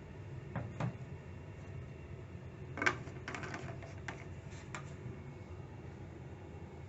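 A few scattered light clicks and knocks over a low steady hum, the loudest about three seconds in.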